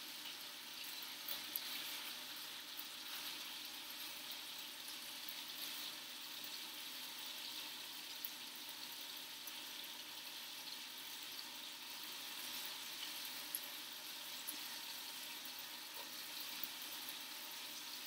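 Chicken pieces browning in oil in a frying pan: a steady sizzle, with a few faint ticks.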